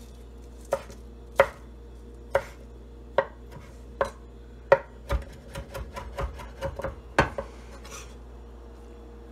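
Chef's knife chopping fresh basil leaves on a wooden cutting board. Single chops come about a second apart, then a quicker run of chops in the middle, and the chopping stops after about seven seconds.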